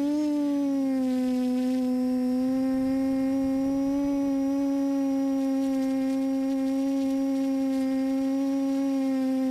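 Electric motor and propeller of an RC aircraft running at steady cruise throttle: a steady droning tone that rises slightly in pitch just after the start, then holds.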